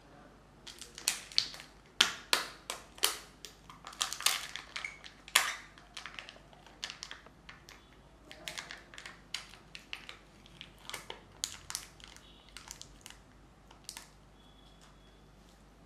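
A Kinder Joy egg being unwrapped by hand: its printed wrapper crinkles and tears and the plastic egg halves crack apart, in loud sharp crackles for the first several seconds. Softer crackling follows as the seal is peeled off the chocolate half.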